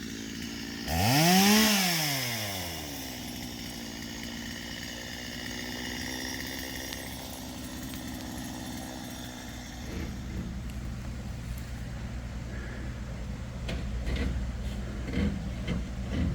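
A small gasoline engine revs up and back down once about a second in, then runs steadily. From about ten seconds in a deeper engine drones on, with a few knocks near the end.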